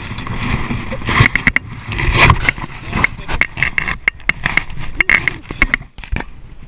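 Irregular sharp knocks and scrapes as an inflatable kayak and its paddle are handled in very shallow river water, over a steady low rumble. The knocking thins out near the end.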